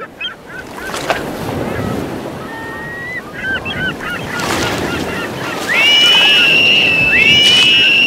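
Seaside ambience: a steady wash of surf with birds calling over it. Short wavering calls come about three seconds in, then longer calls that rise and hold their pitch, repeating from about six seconds in.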